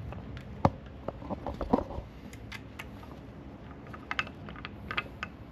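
Hand tools and small engine parts being handled: scattered clicks and light knocks, the loudest two in the first two seconds, then a quick run of clicks near the end.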